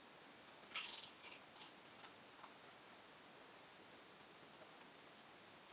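A few short clicks and crackles of eating at a table, the loudest about a second in, the rest soft; after about two and a half seconds only faint room tone.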